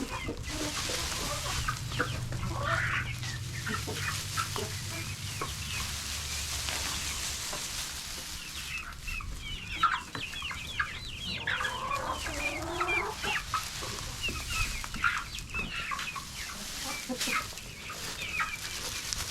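Domestic hens clucking and calling, many short calls overlapping, with one longer, falling call about twelve seconds in.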